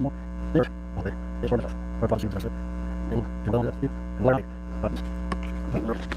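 Steady electrical mains hum, with irregular light knocks and clicks scattered throughout.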